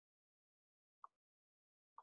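Near silence, with two faint short clicks, one about halfway through and one near the end.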